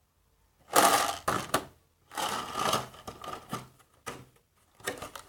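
Small craft items and a cardboard box being handled: rustling and light tapping in several short bursts, with a few scattered clicks near the end.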